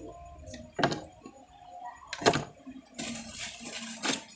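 Three sharp knocks about a second and a half apart, with a brief hissing rush of noise just before the last one.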